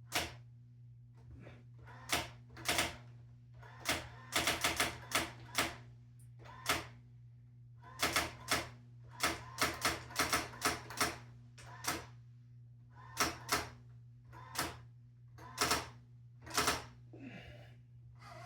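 Brother GX-6750 electronic typewriter printing as keys are typed: sharp mechanical strikes, irregular, some single and some in quick runs, with short pauses between, over a steady low hum.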